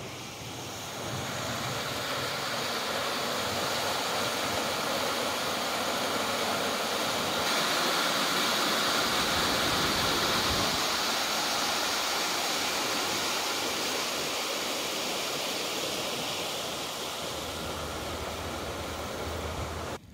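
Water rushing through a concrete sluice channel: a steady rush of white-water noise that grows louder through the first half and eases off near the end.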